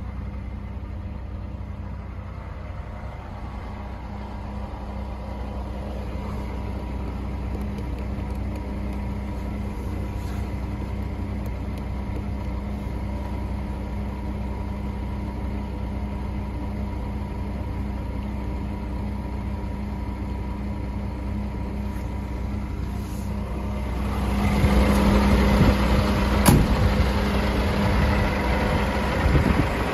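Scania R420's six-cylinder diesel idling steadily, at first muffled inside the cab. From about three-quarters of the way through it is louder and clearer in the open air, and one sharp knock comes a couple of seconds later.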